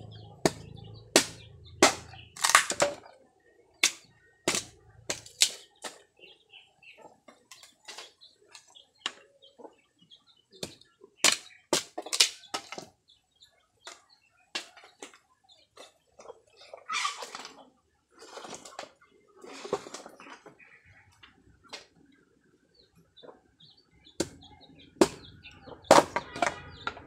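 Bolo knife chopping and splitting bamboo into firewood: sharp, irregular chops, quick in the first few seconds, then more scattered, with a run of harder strokes near the end.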